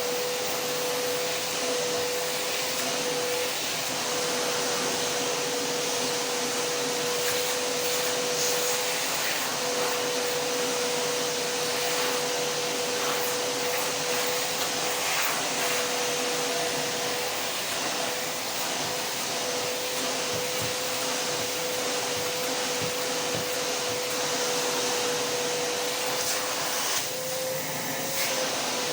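Vacuum cleaner running steadily: an even rush of airflow with a steady motor whine. Near the end the whine briefly shifts a little higher and the rush changes.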